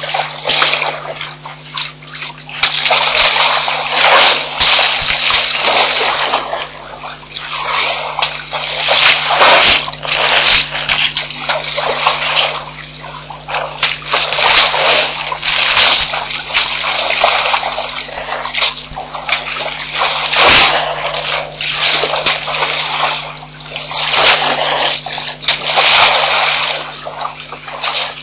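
African elephants splashing and sloshing waterhole water with their trunks, in irregular surges every second or two, over a steady low hum.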